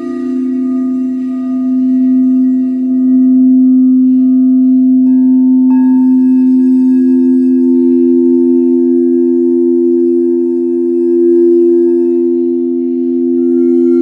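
Crystal singing bowls ringing in long, overlapping steady tones that swell and fade slowly. About five seconds in, another bowl enters and adds higher tones.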